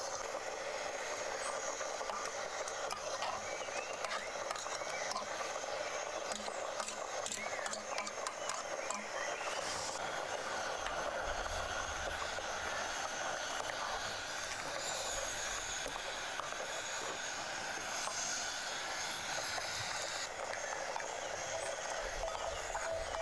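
Steady hiss of a small portable gas burner heating a pot of broth, with scattered light clinks and scrapes of a spoon and tray as noodles and then sliced mushrooms go into the pot.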